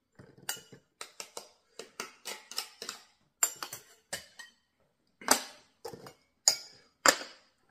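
Metal spoon clinking and scraping against the stainless steel pots and lids of a pickle tray as condiments are scooped out, a quick run of short clinks with several louder ringing ones near the end.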